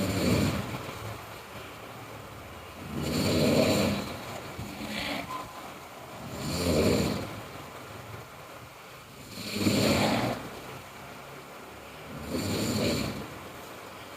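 A sleeping person snoring loudly: five rasping snores, one about every three seconds, each lasting about a second, with quieter breathing between them.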